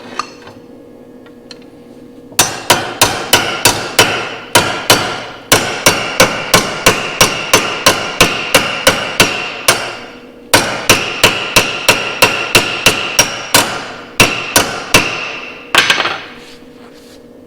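Hammer striking a freshly welded steel throttle rod in fast, ringing metal-on-metal blows, about four a second, knocking the slag off the weld. The blows start about two seconds in and come in three runs with brief pauses, stopping near the end.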